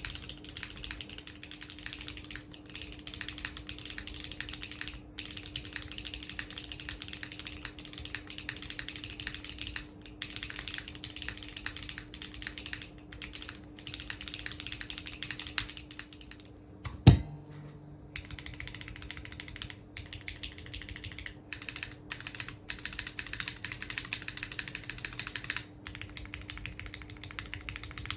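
Fast typing on a SINGAKBD Kohaku R2 custom mechanical keyboard with stock HMX Xinhai switches and GMK keycaps, mostly on a polypropylene plate, with a faint steady hum behind it. About seventeen seconds in, a single loud sharp knock marks a cut, and the typing carries on on the aluminium plate.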